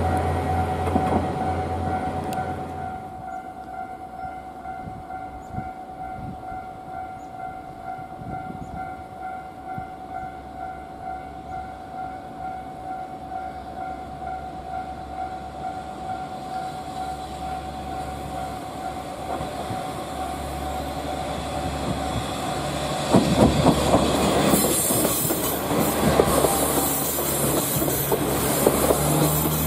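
JR KiHa 40-series diesel railcar approaching and passing close by. Its engine and running noise grow louder over the last several seconds, with sharp clicks of the wheels over rail joints and a loud hiss of wheel-on-rail noise near the end.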